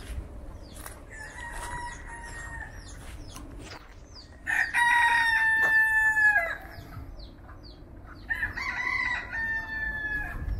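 Rooster crowing three times, the middle crow the loudest. Each crow is a drawn-out call that drops in pitch at its end.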